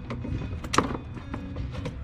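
Background music, with a few sharp clicks and knocks of hand tools at work on the car's battery terminal, the loudest about three quarters of a second in.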